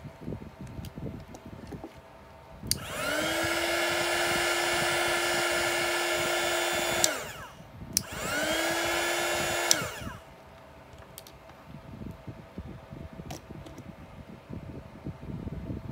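Small heat gun switched on with a click, its fan motor whining up to a steady pitch and running for about four seconds. It winds down, is clicked on again almost at once, runs for about two more seconds and winds down.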